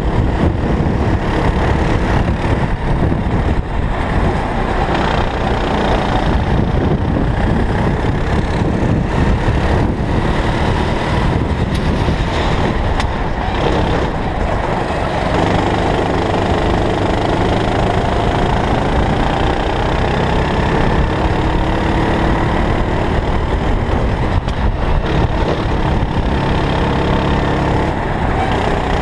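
Onboard sound of a Sodi racing kart's engine running hard around the track, its pitch rising and falling with the throttle through the corners.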